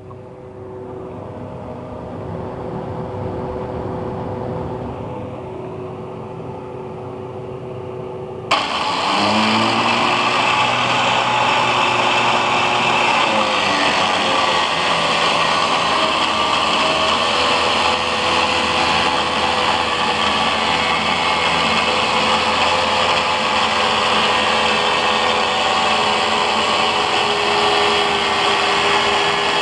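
Angle grinder mounted as a cut-off saw, running with a steady hum, then about eight seconds in the disc bites into the workpiece and a loud, harsh cutting noise starts and keeps on. As the cut begins, the motor's pitch sags under the load.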